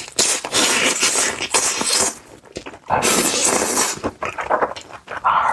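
Close-miked eating sounds: a person crunching and chewing crispy food in loud bursts, one long one at the start and another about three seconds in.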